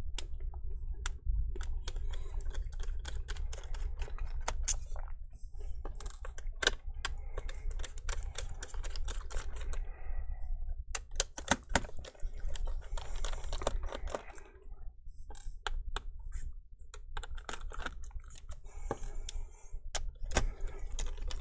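Small Phillips screwdriver backing out the screws that hold a laptop battery: a steady run of quick, light clicks and scratches with short pauses between them.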